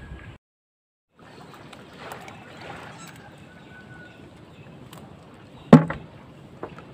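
Steady wind and water noise, cutting out completely for under a second near the start. One sharp knock stands out about six seconds in.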